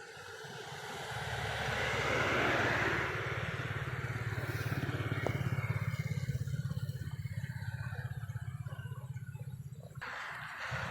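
A motor vehicle engine running close by, swelling over the first couple of seconds, then holding steady with a low rapid throb, and cutting off suddenly near the end.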